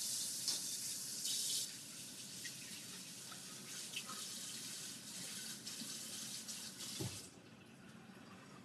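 Kitchen tap running into a sink, a steady hiss of water that is stronger for the first couple of seconds and softer after. It is shut off with a soft knock about seven seconds in.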